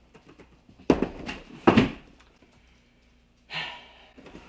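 Cardboard boxes being handled: two loud thumps a little under a second apart as the outer shipping carton is pushed aside and the long boxed rifle is set down on the table, then a shorter, softer scuffing sound near the end.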